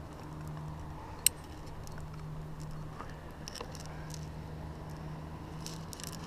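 Wired climbing nuts clinking against each other and their carabiner as a climber sorts through them for a placement, with one sharp metallic click about a second in and lighter clicks later. A steady low hum sits underneath.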